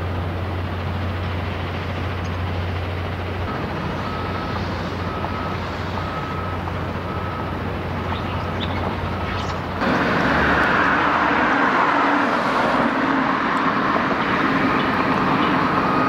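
Vehicle engine running with a steady low hum, with a repeated high beep from about three and a half seconds in until about nine seconds. About ten seconds in the sound turns louder and wider, like the road and wind noise of a moving vehicle.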